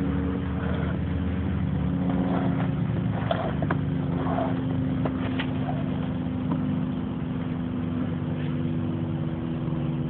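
An engine running steadily at a constant pitch, with a few faint light knocks over it.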